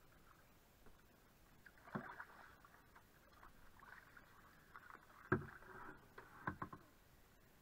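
Paddling a canoe on a slow river: quiet paddle strokes through the water and a few dull knocks, the loudest about five seconds in.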